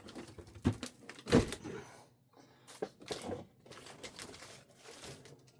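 Scattered light clicks and knocks, the loudest a dull knock about a second and a half in, as a small RC crawler truck is handled and set down.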